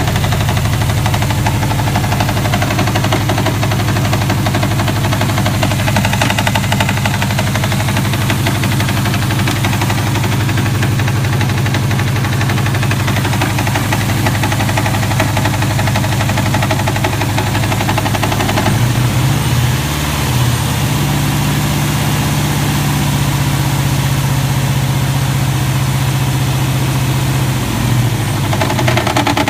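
Subaru WRX's turbocharged flat-four engine running at idle with a rhythmic knocking noise. The engine speed steps up slightly past the middle and settles back near the end.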